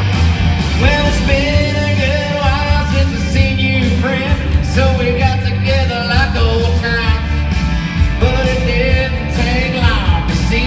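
A man singing a comedy song live into a microphone, accompanying himself on a strummed electric guitar. The guitar plays alone at first, and the voice comes in about a second in.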